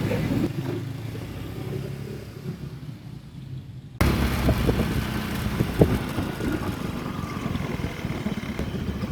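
A motor vehicle running with a low rumble and some clatter. About four seconds in, the sound cuts abruptly to a louder stretch of the same kind of rumble with scattered knocks.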